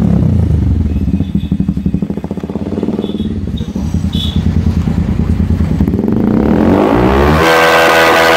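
Bajaj Pulsar motorcycle's single-cylinder engine running through an aftermarket TWPO exhaust: the revs drop to an idle with a distinct beat, then rise sharply about seven seconds in and hold high.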